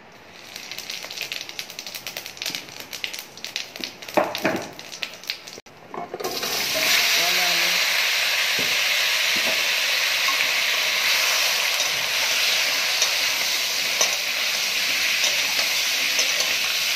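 Cumin seeds and dried red chillies spluttering and crackling in hot oil. About six seconds in comes a sudden, loud, steady sizzle as pieces of raw green banana and potato go into the oil and fry.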